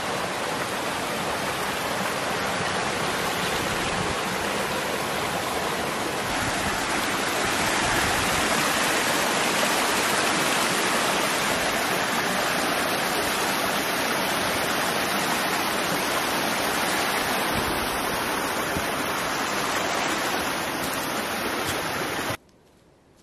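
Steady rush of fast-flowing water, cutting off abruptly near the end.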